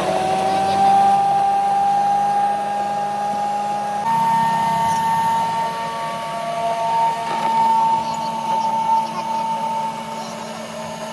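Electric countertop blender motor running steadily with a high whine, blending a mint margarita. Its pitch steps up sharply about four seconds in.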